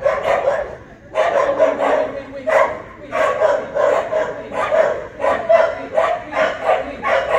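A dog barking over and over in short sharp barks, about two a second, after a brief pause near the start.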